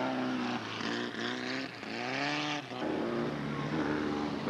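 Open-wheel dirt-track race car engines at full throttle, their pitch rising again and again and breaking off sharply, as with upshifts or cars passing one after another.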